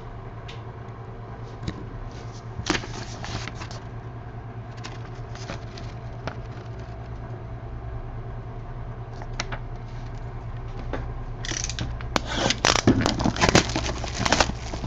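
Clear plastic shrink wrap crackling as it is torn and pulled off a trading-card box, in a loud run of crackles near the end. Before that there are a few light handling clicks over a steady low hum.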